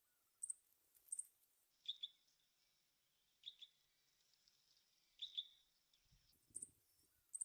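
Faint, short, high-pitched chirps from a small songbird at its nest, coming singly or in quick pairs about once a second. A soft low rustle comes near the end.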